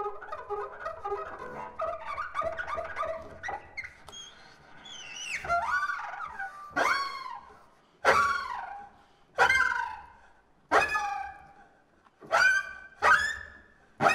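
Double bass played with the bow in a free improvisation. The first few seconds are busy, scratchy pitched notes. Then come about six separate sharp strokes, roughly one every second and a half, each a loud bite whose tone slides down in pitch and fades.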